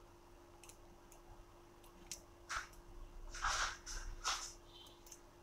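Faint scrapes and clicks of small tools handling a disassembled smartwatch's internal parts, a few short ones from about two seconds in, with a faint steady hum underneath.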